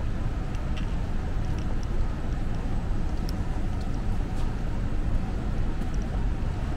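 Steady city street noise on a rainy night: a continuous low rumble of traffic on wet roads, with a few faint, scattered ticks.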